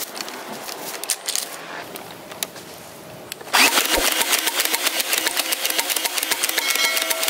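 Battery-powered toy foam-dart gatling blaster switching on about halfway through and running with a rapid, even mechanical clicking as its motor spins the barrels and feeds the dart belt. Before it starts there are only a few light plastic handling clicks.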